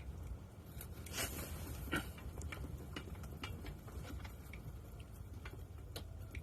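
Low, steady wind rumble from gusty wind, with scattered light clicks and taps throughout, the loudest about a second and two seconds in.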